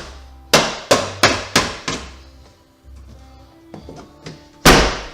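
Hammer blows on a sheet-steel replacement body panel, tapping it into shape to fit over the cut-out rust area. Five quick strikes about half a second apart, then a few lighter taps and one heavy blow near the end, the loudest.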